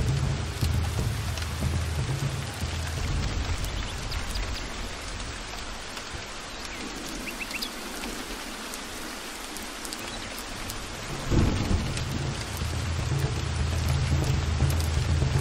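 Heavy rain falling steadily, with thunder: a low rumble that fades away over the first few seconds, then a sudden loud thunderclap about eleven seconds in that rolls on as a low rumble.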